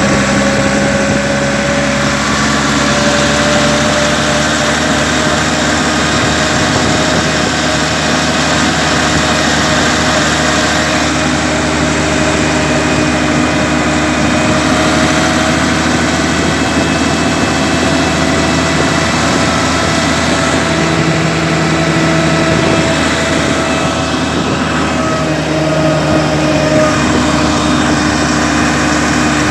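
Massey Ferguson 399 tractor's six-cylinder Perkins diesel engine running steadily while the tractor drives, heard from the driver's seat. Several steady whining tones sit over the engine note, drifting slightly in pitch.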